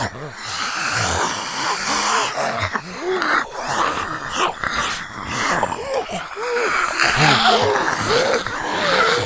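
Zombie voice sound effects: raspy, wheezing groans and snarls from one or more voices, a string of short wavering growls with breathy gasps between them.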